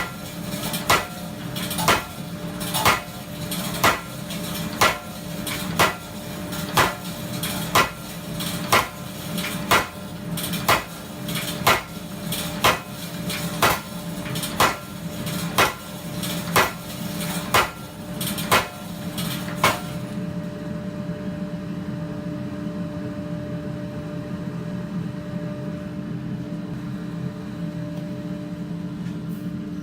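Custom blacksmith power hammer striking a hot steel bar being drawn down, about one sharp metallic blow a second, some twenty blows over a steady machine hum. The blows stop about two-thirds of the way through while the hum keeps running.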